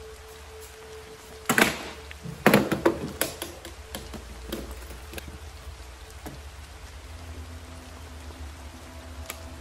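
A pump shotgun and a small aluminium case are set down on a wooden table: a heavy thud, then a quick cluster of knocks. Softer clicks follow as the case's latches are opened, and faint music tones come in near the end.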